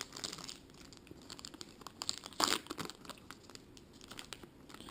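A trading card pack's wrapper being torn open and crinkled in the hands, in faint intermittent rustles with one louder crinkle about halfway through.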